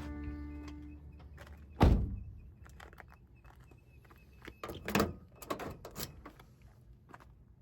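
A single heavy thump about two seconds in, then a quick scatter of lighter knocks and clicks a few seconds later.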